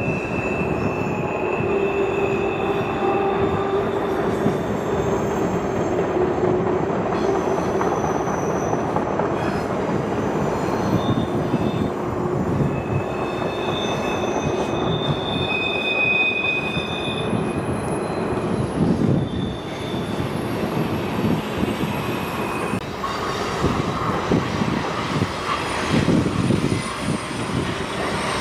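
Freight train's cars rolling around a tight curve: a steady rumble of steel wheels on rail, with high-pitched wheel squeal from the curve that comes and goes in shifting tones.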